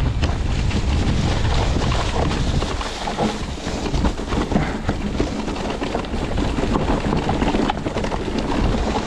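Wind rushing over a chest-mounted action camera's microphone as an electric mountain bike rides a dirt trail. The tyres roll over dirt, leaves and stones, and frequent short knocks and rattles come from the bike over the bumps. The low rumble is heaviest in the first few seconds.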